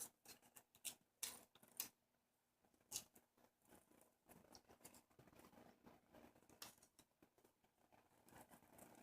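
Scissors snipping paper close around a cabochon: faint, short, irregular snips.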